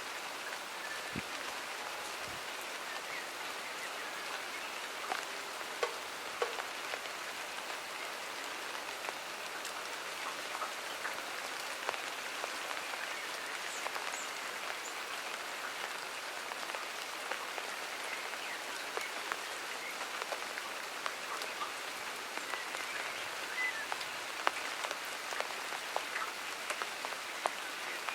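Steady rain falling in a garden, with many single drops landing close by as sharp ticks.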